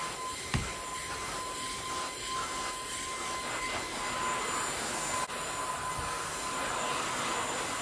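Cordless stick vacuum running steadily with a constant whine as its brush nozzle is worked over fabric sofa cushions, with a soft thump about half a second in.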